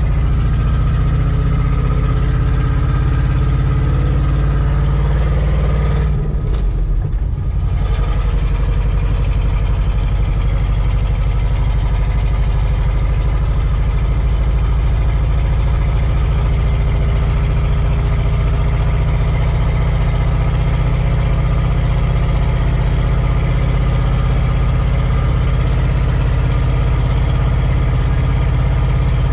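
1989 Ford F250's 5.8-litre V8 running steadily under way, heard from inside the cab, now fed by a newly replaced in-tank fuel pump. The engine sound eases briefly about six seconds in, then carries on as before.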